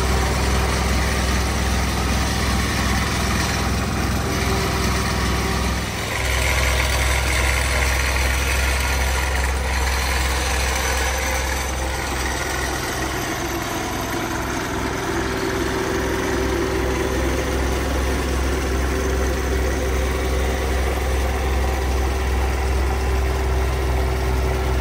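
Engine of site machinery running steadily with a low, even hum, dipping briefly about six seconds in.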